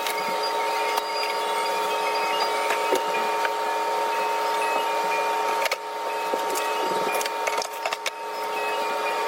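Steady mechanical hum with a few fixed tones over a hiss, broken by a few faint clicks and knocks.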